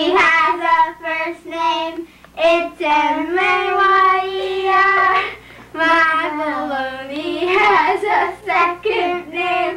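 Children singing a song, in sustained held notes broken by short pauses between phrases.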